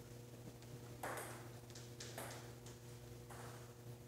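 Table tennis ball clicking off bats and table during a rally: a few sharp clicks about a second apart, over a steady low hum.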